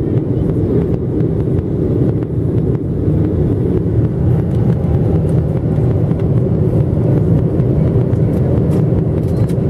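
Steady low rumble inside the cabin of a Boeing 737-700 in flight: airflow over the fuselage and the drone of its CFM56-7 turbofan engines.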